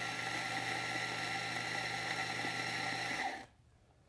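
Ceado E5P electric coffee grinder, a 300-watt motor turning flat stainless steel burrs, grinding espresso coffee into a portafilter: a steady hum and whine that stops a little over three seconds in.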